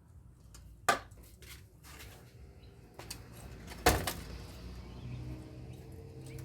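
Scrap parts being handled while an air-conditioner blower is taken apart: two sharp knocks, about a second in and a few seconds later, the second the louder, among a few faint ticks. A low steady hum comes in near the end.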